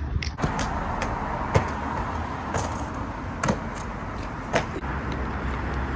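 Sharp slaps and thuds of trainers on paving, roughly once a second, as a parkour athlete runs, jumps and lands, over a steady outdoor background hiss and rumble.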